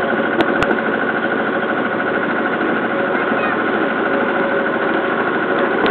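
Small river ferry boat's engine running steadily under way, with the rush of water and wind over it and two short knocks about half a second in.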